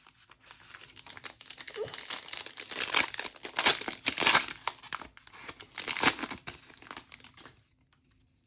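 Plastic trading-card wrapping being torn open and crumpled by hand: a dense crinkling that builds from about half a second in and stops shortly before the end.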